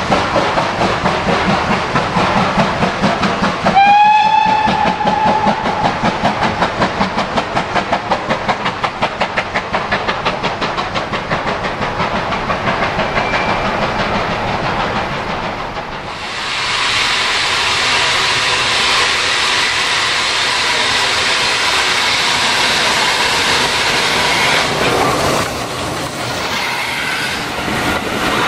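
A steam locomotive pulling a short goods train away, with a regular pulsing exhaust beat and one whistle blast about four seconds in. After an abrupt change at about 16 s, passenger coaches run past close by with a dense rushing and clattering of wheels on rail.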